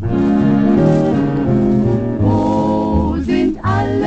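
A foxtrot played from a 78 rpm record: a dance orchestra with a vocal group singing, held notes over a stepping bass line.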